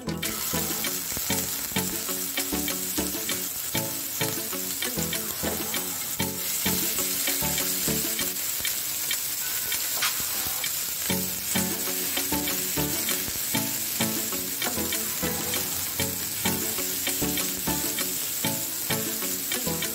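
Hot oil sizzling in a non-stick frying pan as a spoonful of chopped food drops in at the very start, then frying steadily while a spatula stirs and scrapes it around, with many small clicks. Background music plays underneath.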